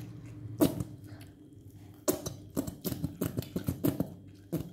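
Plastic squeeze bottle of chili sauce being squeezed, giving several short, sharp squirts.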